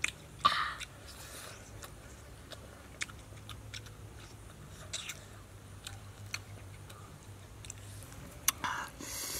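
Close-up eating sounds of people chewing grilled fish: wet lip smacks and mouth clicks scattered throughout. A louder burst comes about half a second in, and another near the end.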